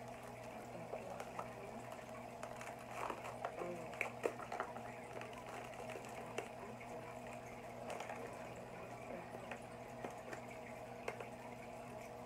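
Aquarium water bubbling steadily from a stream of air bubbles, over the steady low hum of the tank's pump. A scatter of light clicks and knocks, most of them about three to four and a half seconds in.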